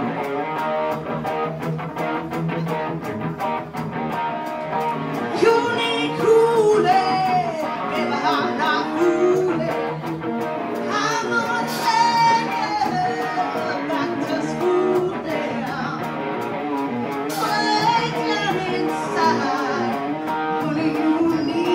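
Live rock band playing electric guitars, bass and drums while a woman sings lead into a microphone; her voice comes in about five seconds in over the steady chords and beat.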